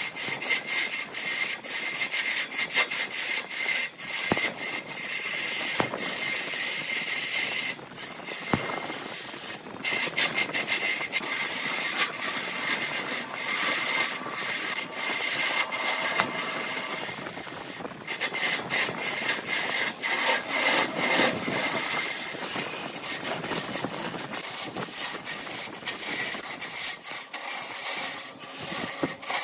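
Wood lathe running while a turning tool scrapes a spinning blank of glued bamboo chopsticks and epoxy resin: a steady whine under a dense, scratchy run of clicks, easing off briefly about eight seconds in.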